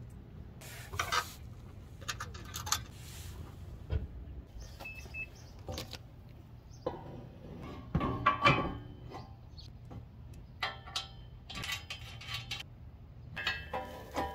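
Small metal hardware (washers, nuts and bolts) clinking and rattling as it is handled and fitted at the truck's side-step mounting points, with irregular clicks and scrapes, busiest about eight seconds in and again near the end.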